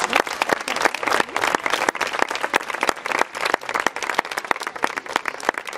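Audience applauding: many hands clapping irregularly, the clapping thinning out near the end.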